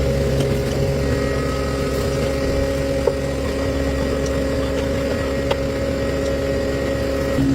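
Tractor engine idling steadily, an even low hum that shifts slightly in pitch near the end.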